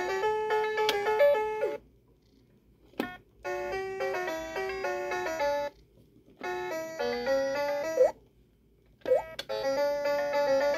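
Little Tikes Animal Band toy keyboard playing short electronic melodies as its keys are pressed. The tunes come as separate snippets of about two seconds each, with brief pauses between them.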